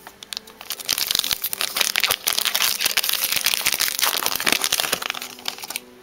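Foil wrapper of a Pokémon trading card booster pack crinkling and crackling as the pack is opened and handled: a dense run of small crinkles that starts about a second in and stops just before the end.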